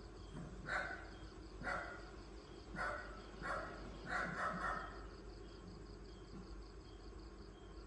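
A dog barking, about six short barks in the first five seconds, with crickets chirping steadily throughout.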